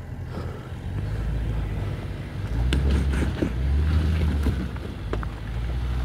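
Range Rover Sport's engine running with a low, steady rumble as it crawls over a rocky trail, getting louder about halfway through, with a few sharp crunches and clicks of loose stones.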